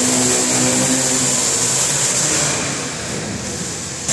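Steady machinery running with a low hum and a high hiss, easing a little after about two and a half seconds.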